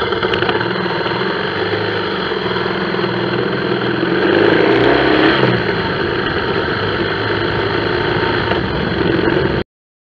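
Motorcycle engine running at low speed in slow traffic. It rises in pitch and gets louder about four to five seconds in as the bike speeds up, then eases back, and the sound cuts off suddenly near the end.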